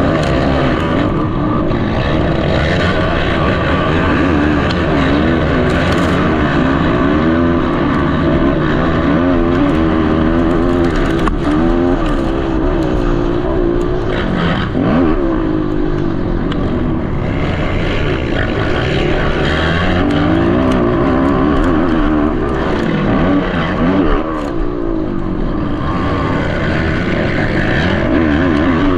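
Racing ATV quad engines revving hard, their pitch rising and falling again and again as they accelerate, shift and back off.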